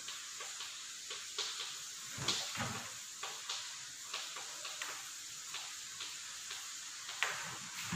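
Chalk writing on a chalkboard: a run of short, irregular scratches and taps of the chalk against the board, over a faint steady hiss.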